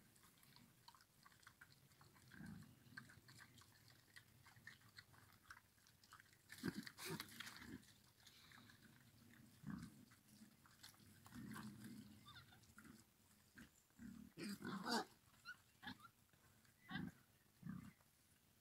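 Young wild boar feeding together: soft low grunts mixed with chewing and crunching of food, with a louder burst of grunting about fifteen seconds in.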